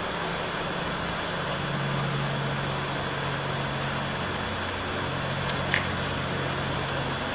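Two pedestal electric fans running, a steady rush of blown air with a low motor hum. A short click near the end.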